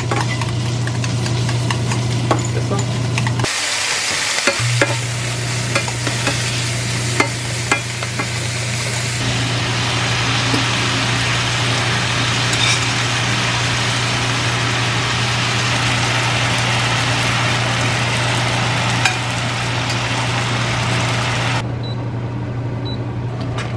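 Bacon and spaghetti sizzling in a frying pan as they are tossed with metal tongs, with scattered clicks of the tongs against the pan over a steady low hum. The sizzling stops shortly before the end.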